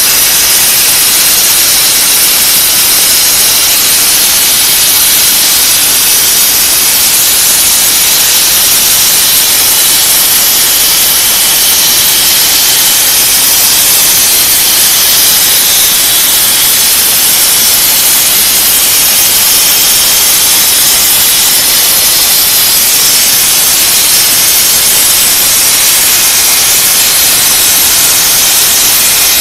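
CNC plasma torch, fed by a 300 A plasma source, cutting through steel plate: a loud, steady hiss that does not change or break.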